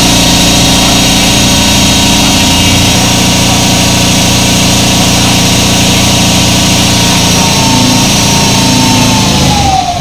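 Electric motorcycle motor running steadily at speed on a stand, with a high, even whine. Near the end it winds down and the whine falls in pitch as the motor slows.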